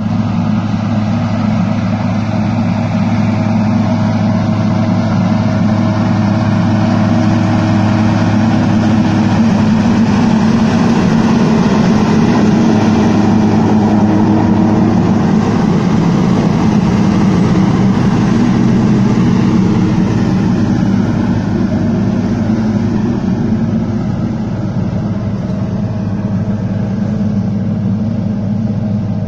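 Diesel engine of an Agrico 4+400 four-wheel-drive tractor running steadily under load while pulling a six-row ripper through the soil. It grows louder as the tractor passes close about halfway through, then fades as it moves away.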